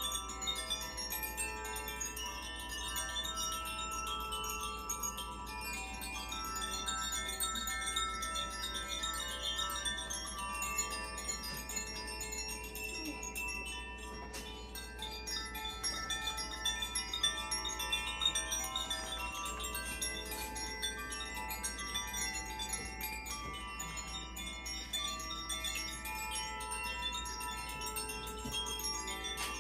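Makino-style Advance Chimes, tuned metal chimes, struck in turn so that many clear tones ring and overlap, each fading slowly.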